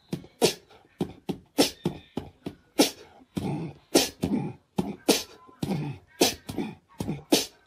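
Cat hissing and spitting in short, sharp bursts, about three a second at an irregular pace.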